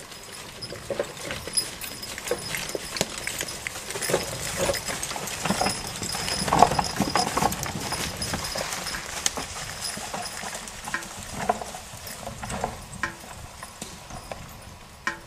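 Team of two draft horses walking, their hooves clopping and thudding irregularly on leaf-covered ground while the wagon they pull rolls and knocks behind them. Loudest as they pass about six to seven seconds in, then fading as they move away.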